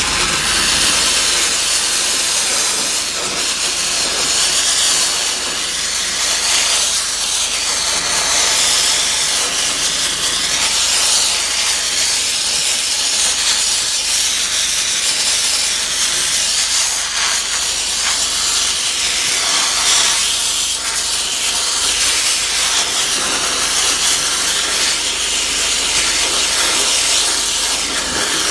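A 500-bar high-pressure water jet blasting against a ship's hull to strip its paint, a steady, loud, harsh hiss.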